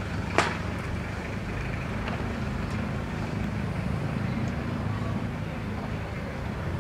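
Steady low rumble of an engine running at idle, with one sharp click about half a second in.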